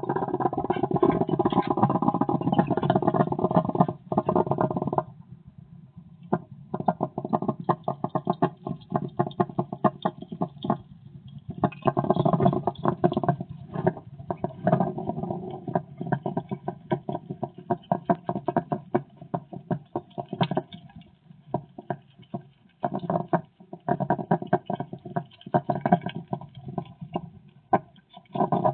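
Hedgehog huffing and clicking in rapid, irregular runs, broken by short pauses about five and eleven seconds in.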